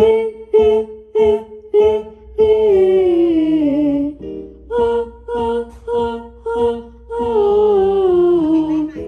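A voice doing vocal warm-up exercises. A run of short sung notes on one pitch is followed by a long note sliding down, and the pattern comes twice.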